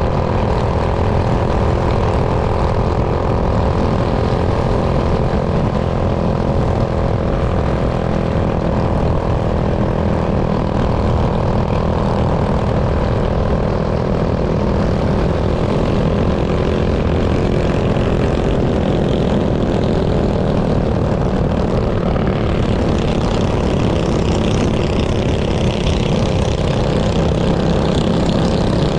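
Minibike's small engine running at steady revs, a continuous engine drone with a slight shift in tone about two-thirds of the way in.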